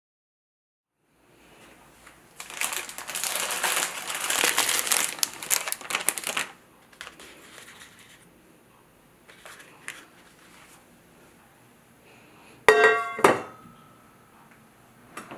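Plastic bread packaging crinkling for about four seconds as it is handled and opened, followed by softer rustles and light taps. Near the end a stainless steel pot clanks twice, ringing briefly.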